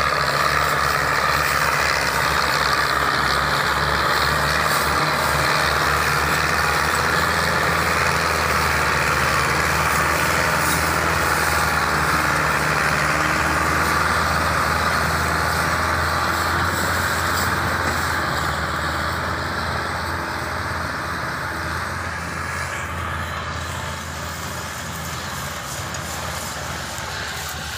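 Diesel engines of two Belarus 510 tractors, each a four-cylinder diesel, running hard under heavy load as they pull a loaded trolley out of soft ground. The steady engine note fades gradually over the last ten seconds as the tractors move away.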